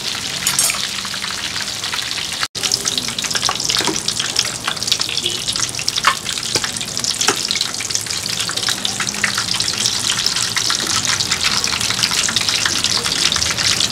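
Battered food deep-frying in a large pot of hot oil: a dense, steady sizzle and crackle with many sharp pops, broken by a brief dropout about two and a half seconds in.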